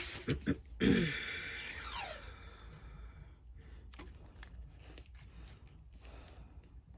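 Washi tape being pulled off its roll and torn, a noisy stroke lasting over a second that starts about a second in after a few quick clicks, followed by fainter rustling and light clicks as it is handled on the diamond painting canvas.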